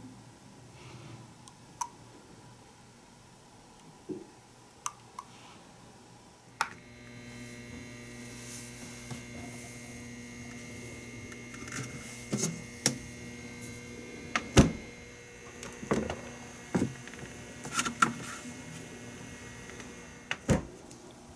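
A few light clicks of a plastic spoon against a plastic mould, then a refrigerator's steady electric hum, with sharp knocks as the plastic mould is set on a glass fridge shelf and a heavy thump near the end as the fridge door shuts.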